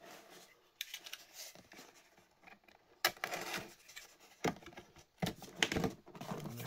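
Cardboard product box being handled and turned over, with scattered scrapes and rustles of the cardboard and several sharp clicks and taps spread through.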